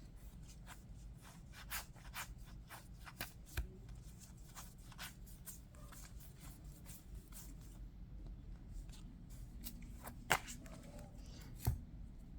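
Yu-Gi-Oh! trading cards being handled and flipped through by hand: a steady run of soft flicks and slides of card against card, with two sharper clicks near the end.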